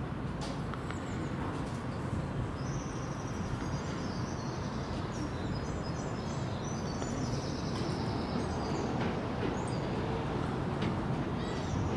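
Class 156 Sprinter diesel multiple unit approaching slowly: a low steady rumble that grows a little louder towards the end, with birds chirping over it in the middle.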